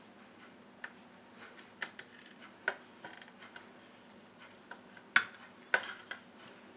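Large kitchen knife cutting through a chilled coconut turrón with a hardened chocolate coating: a scattered series of sharp clicks and cracks as the set chocolate layer gives way under the blade. The two loudest cracks come a little after five seconds in.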